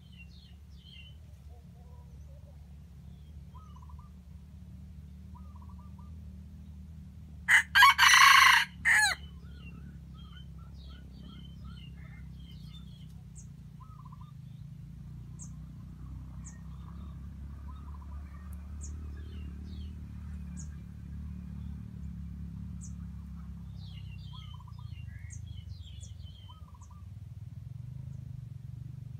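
Junglefowl rooster crowing once, a short loud crow about a third of the way in, over faint scattered chirps of small birds and a low steady rumble.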